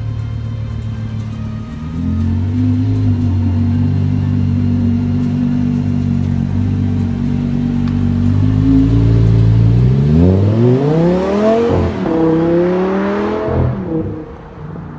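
Lamborghini Gallardo's V10 engine idling steadily, its idle stepping up about two seconds in. Later it revs up as the car pulls away, the pitch climbing twice with a drop at each gear change, then fading as it drives off near the end.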